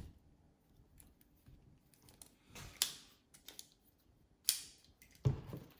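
Metal multi-tool being handled: a few sharp clicks and small knocks, with two louder clicks a couple of seconds apart and a duller knock near the end.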